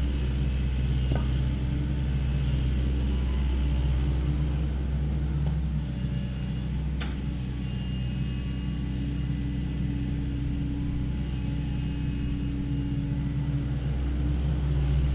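Sany SY75 mini excavator's diesel engine running steadily, easing a little mid-way and picking up again near the end, with a couple of faint sharp clicks.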